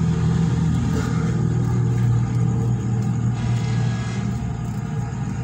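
Steady low mechanical hum, like a motor or engine running without change.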